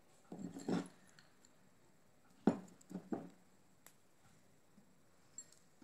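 Faint clinks and knocks of glass kitchenware on a counter as crushed caramel nuts are scattered over the pudding: a short soft clatter about half a second in, then a sharp knock about two and a half seconds in and two softer knocks just after.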